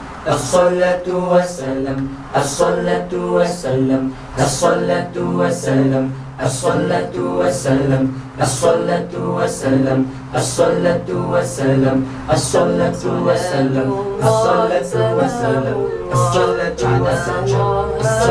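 Male nasyid vocal group singing a selawat in several-part harmony, over a steady beat of about one stroke a second.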